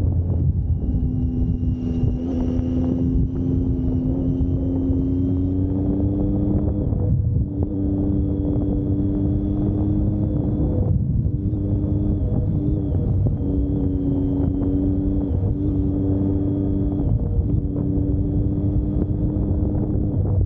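Vehicle engine running under way, its note holding steady with brief breaks and small shifts in pitch every few seconds, over heavy wind rumble on the microphone.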